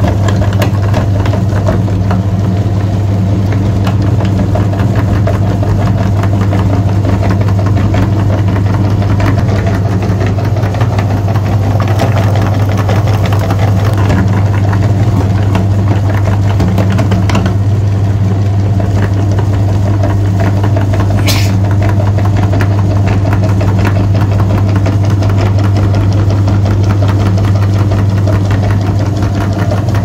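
Meat grinder running steadily with a constant low motor hum, crunching bar soap through its perforated plate into crumbs.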